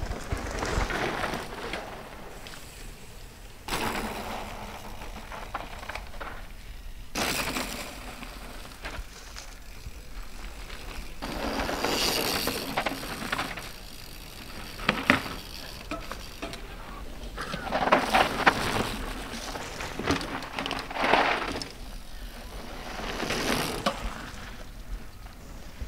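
Mountain bikes ripping past one after another on a dry dirt trail, knobby tyres scrubbing and skidding through loose dirt. Each pass swells up and fades within a couple of seconds, with sharp knocks and rattles from the bikes over the bumps.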